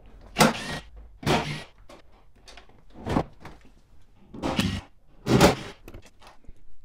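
Cordless power driver running in about five short bursts as it backs out the T50 Torx bolts holding the front seat to the floor.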